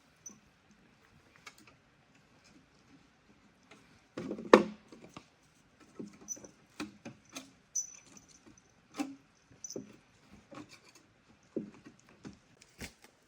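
Irregular knocks, taps and light rustling of things being handled, with the loudest knock about four and a half seconds in.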